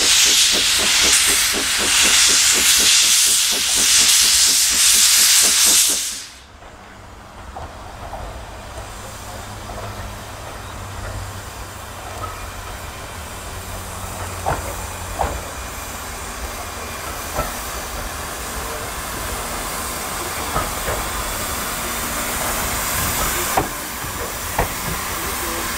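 Robert Stephenson & Hawthorns 0-4-0 saddle-tank steam locomotive letting off a loud, rapidly pulsing hiss of steam that cuts off suddenly about six seconds in. The locomotive and its carriages then come past with a low rumble and scattered sharp clicks from the wheels, growing louder toward the end.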